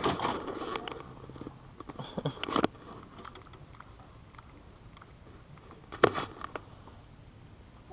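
A few scattered knocks and thumps on a small fishing boat's deck while a just-landed striped bass is handled: a sharp knock right at the start, a couple more about two and a half seconds in, and a pair about six seconds in, with little else between.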